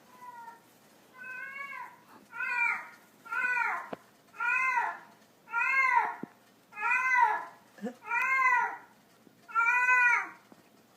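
A cat meowing over and over, about nine meows roughly a second apart, each call rising and falling in pitch; the first couple are fainter, then the meows come loud and even.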